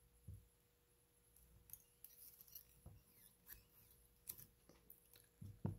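Near silence with faint, scattered clicks and rustles of fingers handling the rubber legs and foam body of a fly held in a fly-tying vise, and a soft knock near the end.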